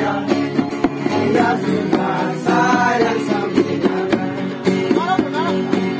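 Men singing together to a ukulele strummed in a steady rhythm.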